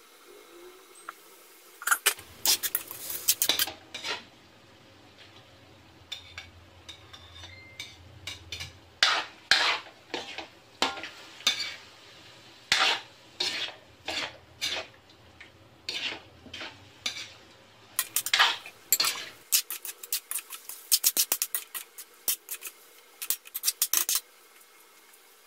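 Metal spatula knocking and scraping against a large aluminium wok in many quick, irregular strokes as chicken pieces are tipped in and stirred through sautéed vegetables.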